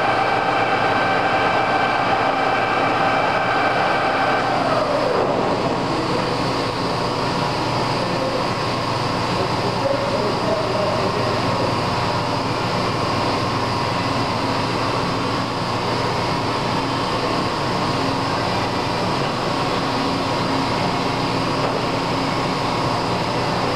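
Lodge & Shipley 21" x 80" heavy-duty engine lathe running under power, its 20 HP motor and geared headstock giving a steady drone with a high gear whine. About five seconds in the whine glides down in pitch, and the lathe keeps running steadily after that.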